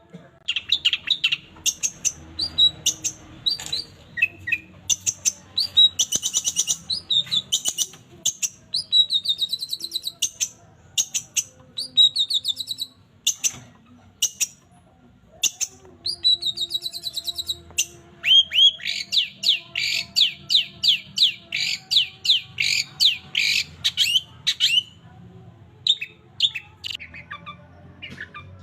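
Long-tailed shrike (cendet) singing a rapid, varied song of sharp chirps, trills and harsh mimicked calls, with a fast run of repeated downward-sweeping notes about two-thirds of the way through.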